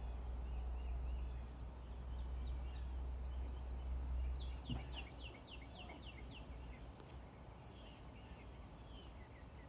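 Small songbirds chirping and singing, faint: a quick run of high downslurred notes, several a second, about four to six seconds in, among scattered softer chirps. A low rumble underlies the first half and fades out.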